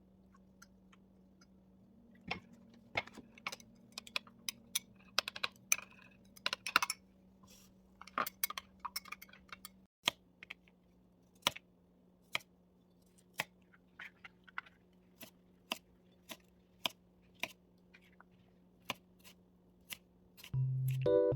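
Irregular light clicks and taps, a few to several a second in places, over a steady low hum that drops out for a moment about halfway through. Music comes in right at the end.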